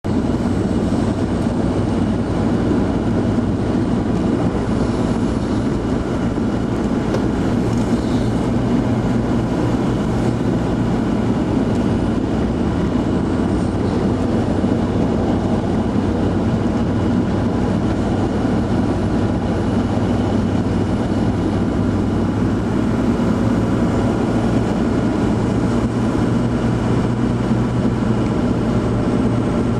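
Steady engine drone and road noise of a vehicle driving along, heard from inside the cabin.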